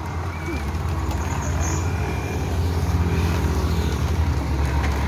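Small electric drum concrete mixer running: a steady low drone from its motor and turning drum, loaded with fresh concrete.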